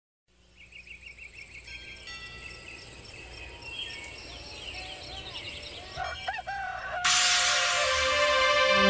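Songbirds chirping and trilling at dawn, with a rooster crowing about six seconds in. About seven seconds in, music starts abruptly and is louder than the birds.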